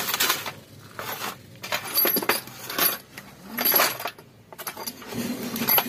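Loose metal engine parts, the valve springs and valves, clinking and jangling against a steel parts tray as a hand rummages through them and lifts them out, in about six short irregular rattles.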